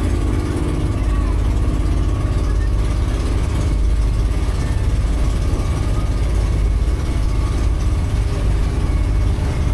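Motorized outrigger boat's engine running steadily, a constant low hum with water and wind noise over it.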